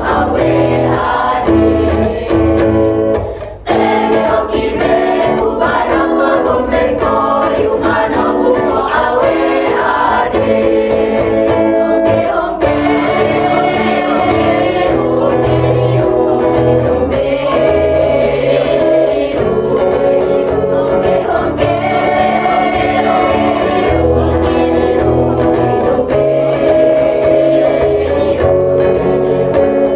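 A mixed student choir singing a song together over an instrumental accompaniment with a steady bass line, with a brief break about three and a half seconds in.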